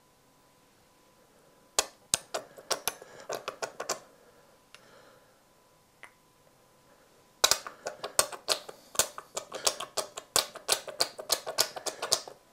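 Quick, irregular clinks of a metal fork against a glass mixing bowl as an egg is stirred: a short spell about two seconds in, a couple of single clicks, then a longer, faster run from about halfway that stops just before the end.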